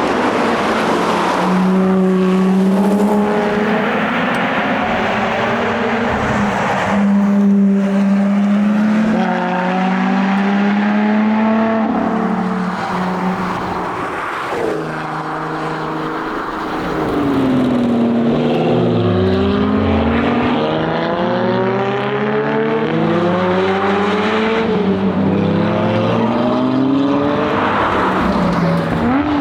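Lotus Evora GT410 Sport's supercharged V6 being driven hard. Its pitch climbs and drops again and again through gear changes, with a run of rising sweeps in the second half, over steady tyre and road noise.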